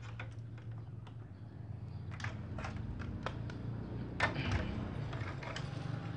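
Scattered light clicks and clacks of test leads, alligator clips and multimeter probes being handled and set down on a wooden table, with a cluster of clicks about four seconds in. A low steady hum runs underneath.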